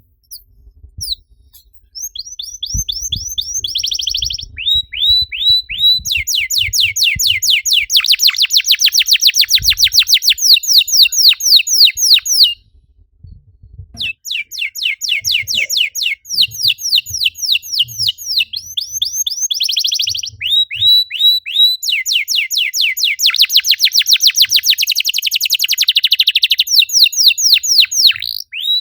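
Domestic canary singing: long bouts of fast repeated down-slurred whistled notes and rapid rolling trills, breaking off for about a second and a half midway before starting again.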